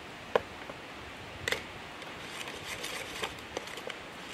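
A whole raw egg being mashed, shell and all, into dry coffee grounds in a coffee can. Two sharp clicks are followed by a quick run of light ticks and crunches as the mixture is beaten.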